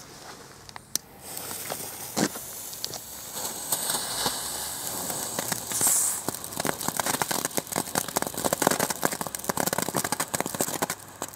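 Weco Crazy Chicken novelty ground fountain burning: a hissing spark jet that becomes dense, rapid crackling about halfway through.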